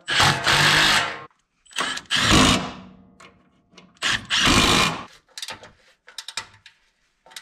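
Milwaukee Fuel stubby cordless impact wrench hammering in three bursts of about a second each, running down and tightening exhaust hanger bracket bolts. A few light metal clicks follow near the end.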